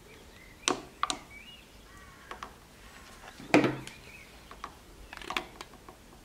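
A silicone spatula and a glass measuring jug being handled on a wooden table: a few sharp clicks against the glass, then a heavier knock about three and a half seconds in, followed by several lighter plastic clicks as an infrared thermometer is picked up and handled.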